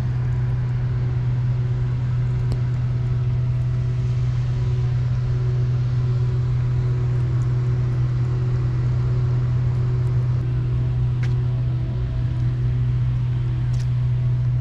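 A loud, steady low hum, like an engine running, with faint steady higher tones over it and a few soft clicks.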